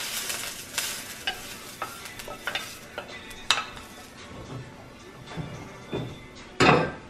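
Cooked onions being scraped out of a frying pan with a spatula, with short clicks and scrapes of utensil on pan over a faint sizzle, and a louder knock of the pan near the end.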